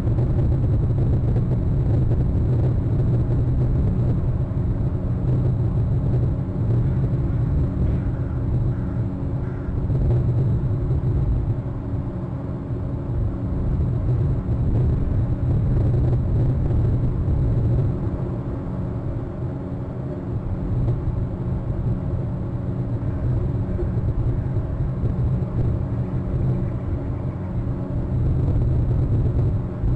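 Steady low droning hum with a rumble under it, made of several even, level tones like a motor or electrical hum, running without a break.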